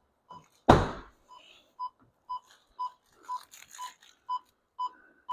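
2018 Ford Explorer's interior warning chime beeping steadily, about two short beeps a second. A loud thunk comes under a second in, with a few lighter clicks near the middle.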